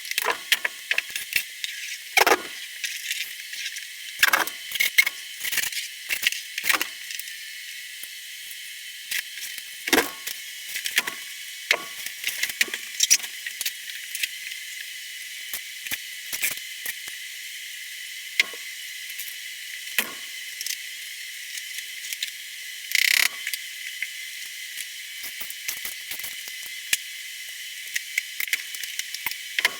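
Scattered, irregular clicks, taps and knocks from hand demolition work, over a steady hiss, with a short harsher scraping burst about 23 seconds in.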